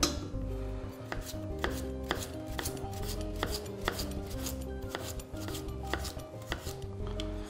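A kitchen knife slicing peeled raw potatoes into thin slices on a plastic cutting board. The blade knocks against the board about twice a second in an even rhythm.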